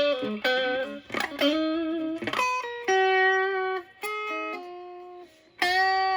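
Fender Stratocaster through a Moollon Fuzz 14 silicon Fuzz Face–style pedal (BC108 transistors), set near full fuzz gain, into a Marshall Valvestate amp on a crunch tone. It plays a slow lead line of held single notes. The sound fades away about four seconds in, and a loud note is struck near the end.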